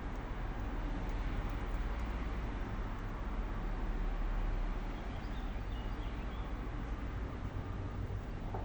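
Steady low rumble of outdoor city background noise, with a few faint high chirps about halfway through.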